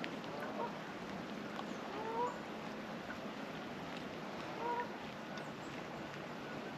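Geese honking three times, short rising calls about two seconds apart, over a steady background hiss.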